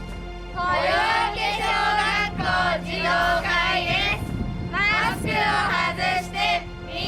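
Children's voices singing together in chorus, starting about half a second in, in short phrases over a steady low hum.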